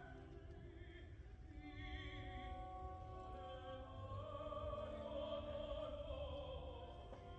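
Live operatic singing with vibrato over an orchestra, picked up from high in the stands of an open-air arena; the sung phrase swells about four seconds in, over a steady low rumble.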